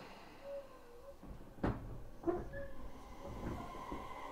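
Two sharp clunks in a Tobu 10030 series train car about half a second apart, followed by a low rumble and a faint hum as the train begins to start off.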